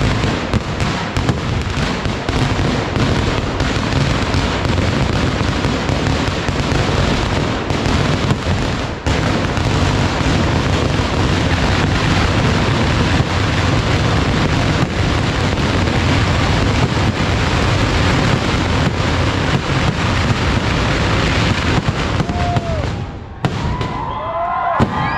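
Kerala festival fireworks (vedikkettu): a continuous, rapid barrage of firecracker bangs with aerial shells bursting overhead. The barrage stops about 23 seconds in, and a few short whistling glides follow.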